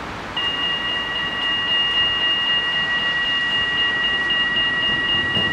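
Dutch level crossing warning bell starts ringing about half a second in, a steady high ringing that carries on. It signals that the crossing is activating for an approaching train.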